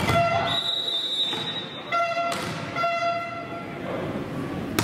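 Volleyball referee's whistle: one long steady blast of about a second, starting about half a second in, signalling the serve. Short held high notes sound several times around it, and a sharp smack comes just before the end as the server strikes the ball.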